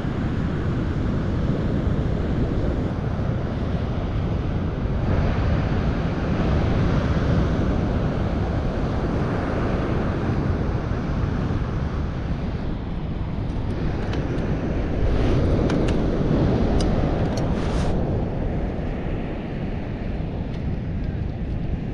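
Strong wind buffeting the microphone over the rush of surf breaking on the beach, a steady roar that swells twice. A few faint clicks come near the later swell.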